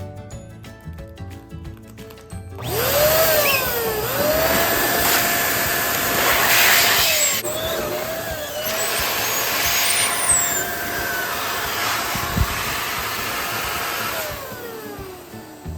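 Electric balloon inflator motor switched on about three seconds in, whining up to speed and then running steadily with a rushing air noise for some twelve seconds, then winding down near the end. Light background music plays underneath.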